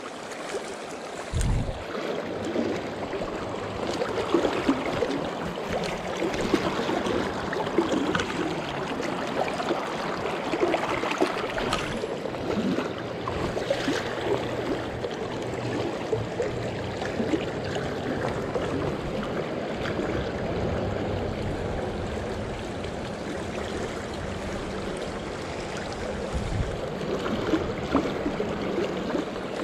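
Shallow, fast stream rushing and gurgling over rocks close by, steady throughout, with a low thump about a second and a half in.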